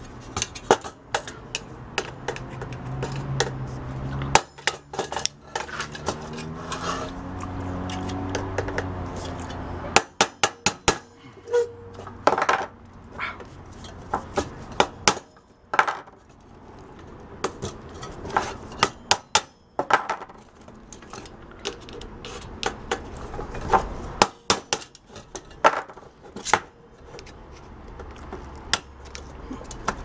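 Irregular sharp metallic clicks, taps and clinks as a screwdriver and pliers pry at and knock against the steel housing and thin metal cooling fins of a microwave magnetron being dismantled for its magnets. For roughly the first third, a low droning sound rises and falls in the background.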